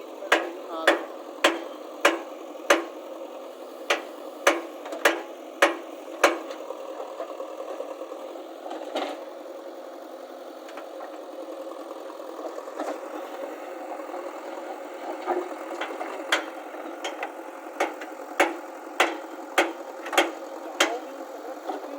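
An engine running steadily, with sharp knocks at irregular intervals: a run of about ten in the first six seconds, then few, then another run near the end.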